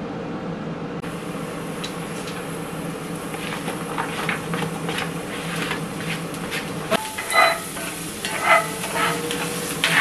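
Oil sizzling and crackling in a cast-iron skillet. Chopped red onion is scraped off a plate into it, then stirred with a spatula, which scrapes and clicks against the pan in louder bursts over the last few seconds.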